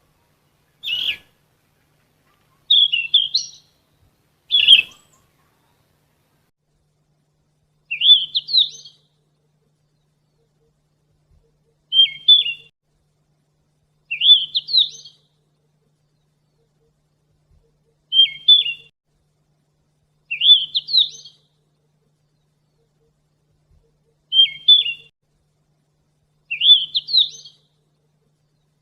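A sikatan emas, a Ficedula flycatcher, singing short, high, clear phrases about every two seconds. The phrases alternate between a quick upward-sweeping run and a shorter broken figure.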